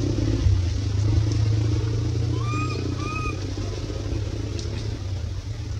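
Infant macaque giving two short, faint coo calls, each rising and falling, a little over half a second apart about halfway through. A steady low rumble runs underneath and is the loudest sound.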